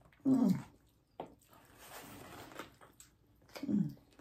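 Quiet eating-table sounds: two short hummed murmurs that fall in pitch, one near the start and one near the end, with a single tap about a second in and a soft rustle between them.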